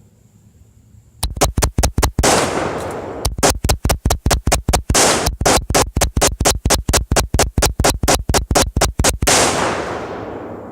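AR-15 rifle firing a long string of rapid semi-automatic shots, about five or six a second, in three runs with short pauses. The shots begin about a second in and stop a little after nine seconds, leaving an echo that fades out.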